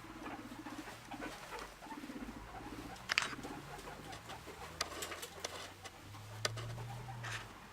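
Guinea pigs making short, low, pulsing purr-like calls, three times in the first couple of seconds, followed by scattered rustles and small clicks as they move about.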